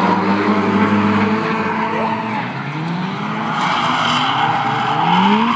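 Drift cars' engines revving on and off the throttle while their tyres squeal and skid through a corner. The sound dips briefly about halfway, then an engine revs up again, climbing in pitch toward the end.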